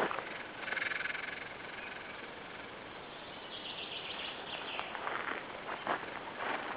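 Outdoor meadow ambience: faint high chirping calls from wild animals over a steady background hiss, with a few short rustles in the second half.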